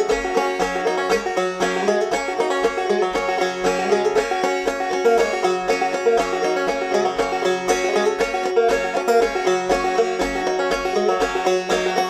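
Background instrumental music: a lively plucked-string tune with a steady beat.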